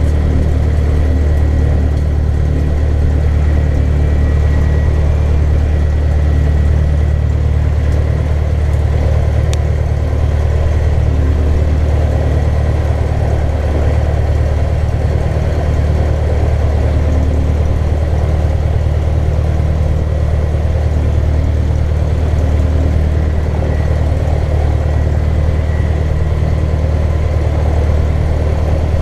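Cessna 150L's four-cylinder air-cooled Continental O-200 engine and propeller idling steadily, heard from inside the cockpit.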